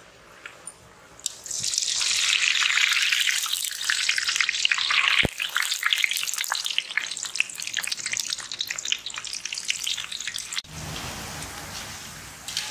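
Gulab jamun dough balls deep-frying in hot oil in an iron kadai: a dense crackling sizzle that swells sharply about a second in, then drops to a quieter, smoother sizzle near the end.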